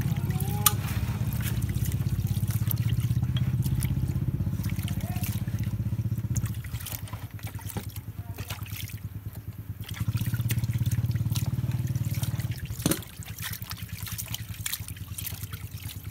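Dark wash liquid sloshing, splashing and dripping in a shallow tray as hands scrub a piston and connecting rod in it. Underneath is a low steady hum that drops away about six seconds in, comes back a few seconds later and stops near the end.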